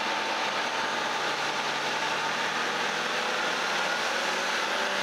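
Rivett metal lathe running steadily near its top spindle speed, a continuous hum and whir from the motor and headstock with the bare chuck body spinning. The run is meant to fling leftover rinse water out of the freshly cleaned chuck.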